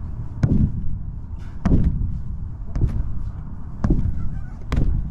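A person bouncing on a bouncy surface, landing with a heavy thump about once a second, five times, over a steady low rumble.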